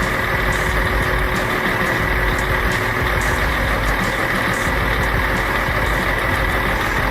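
A heavy vehicle's engine running steadily, with an even noise and no changes in pitch or level.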